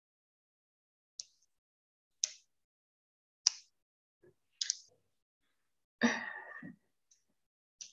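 Sharp clicks, four of them about a second apart, then a short breathy sigh about six seconds in and one faint click near the end.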